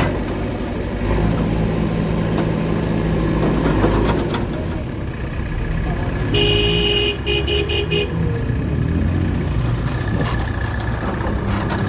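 A vehicle engine runs steadily. About six seconds in, a vehicle horn honks: one longer blast, then a few short toots.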